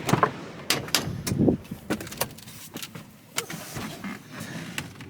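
A scatter of sharp clicks and knocks, about a dozen, from things being handled inside a vehicle's cab, with the wind shut out.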